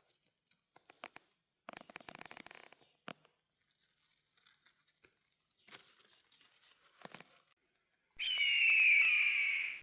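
Footsteps crunching and crackling through dry leaf litter. After a short pause near the end, a loud drawn-out call comes in, sliding down in pitch.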